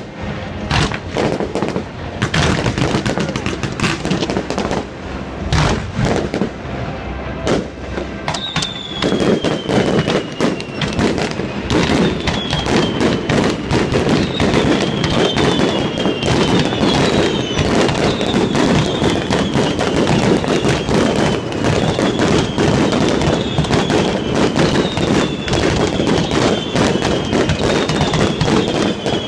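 Aerial fireworks display: a run of sharp bangs and booms, then from about eight seconds in a dense crackling barrage with repeated whistles that fall in pitch.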